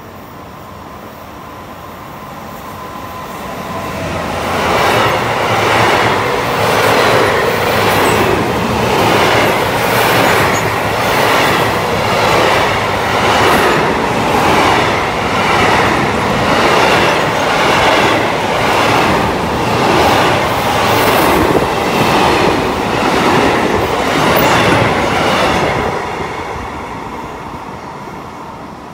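Freight train passing through the station: the wagons' wheels clatter over the rail joints in a steady rhythm of about one beat a second. The sound swells in over the first few seconds and fades out near the end.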